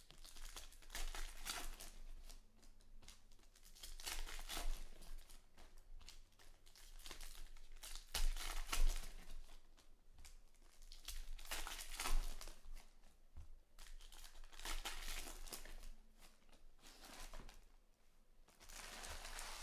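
Foil trading-card pack wrappers crinkling and tearing as packs are ripped open and the cards inside handled, in repeated bursts every two to three seconds.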